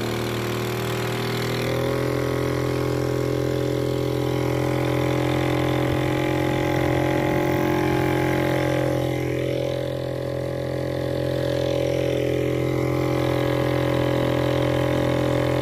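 Small boat engine driving a long-tail propeller shaft, running steadily under way. Its drone picks up slightly in speed about two seconds in and sags briefly about two-thirds of the way through.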